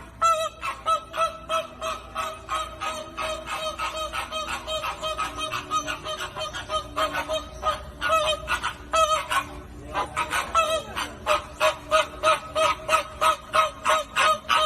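A flock of flamingos honking: many short, nasal calls overlapping, several a second.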